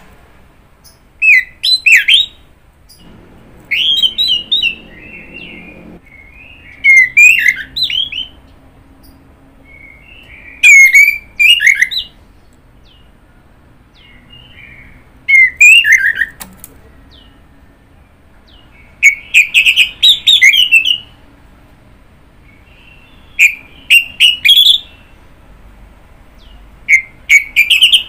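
Orange-headed thrush (anis merah) singing: about eight loud phrases of quick whistled notes, each a second or two long, separated by pauses of two to three seconds.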